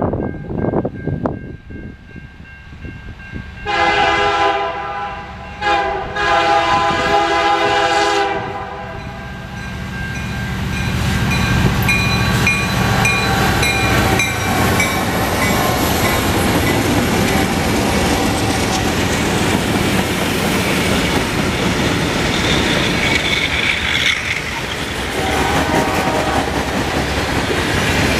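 Diesel freight train passing: the lead locomotive's air horn sounds two long blasts about four seconds in. Then the locomotives go by with a loud diesel rumble, followed by the freight cars' wheels clattering on the rails with occasional high wheel squeal.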